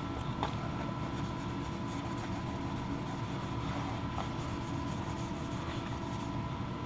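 Steady machine-like hum with a thin, constant high whine over it, and a few faint clicks now and then.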